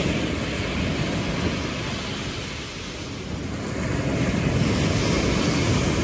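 Sea surf washing on the beach under wind rumbling on the microphone. It is a steady noisy wash that eases a little a couple of seconds in and swells again about four seconds in.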